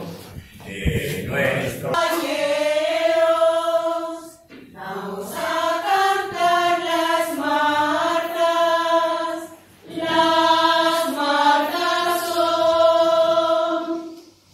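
A mixed choir singing a traditional Cantabrian marzas song in Spanish without accompaniment, in three long phrases with short breaths between them.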